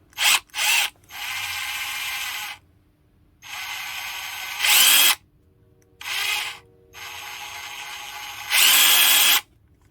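Hart half-inch cordless drill driver run in a series of trigger pulls: two short blips, then longer steady runs at part speed. Two of the runs step up to a louder, faster spin with a rising whine, about halfway through and near the end.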